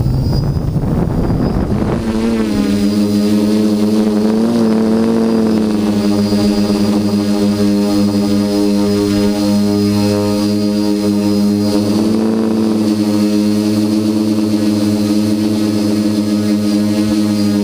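Quadcopter's four electric motors and propellers buzzing steadily in flight, heard through the GoPro mounted on its frame, with a thin high whine above the hum. A rushing noise in the first two seconds settles into the steady buzz, and the pitch wavers briefly about four and twelve seconds in.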